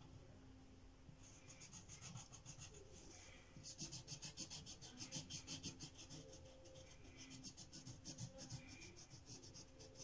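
Felt-tip marker scribbling on paper as a window is coloured in: quick back-and-forth strokes, several a second, faint. The strokes start about a second in and become busier from about four seconds.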